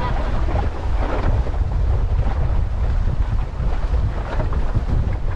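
Wind buffeting the microphone in a steady low rumble, with water splashing and sloshing against the hull of a small sailing boat.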